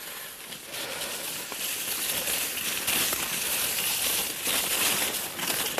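Skibobs sliding downhill over snow: a steady hissing, crackling rush that grows louder about a second in.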